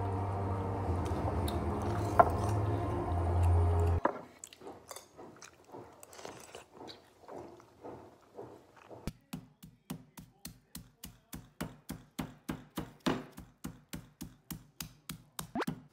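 A steady hum for the first four seconds, then soft, irregular eating sounds. From about nine seconds a wooden rolling pin pounds a plastic-wrapped pork cutlet on a wooden cutting board, about three even thuds a second, to flatten it for tonkatsu.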